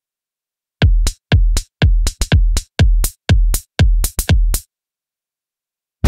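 Drum-loop preset from the ReFX Nexus 4 software synthesizer ('Alpha Horse') playing a programmed beat of heavy, bass-rich electronic drum hits, about two a second. It starts about a second in and stops a little over a second before the end.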